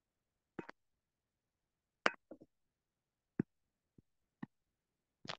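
A stylus tapping and clicking on a pen tablet while writing: about seven short, sharp clicks at irregular intervals, the loudest about two seconds in.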